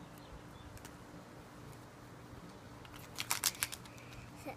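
Plastic Easter egg being pulled apart: a quick cluster of sharp plastic clicks about three seconds in, over faint room tone.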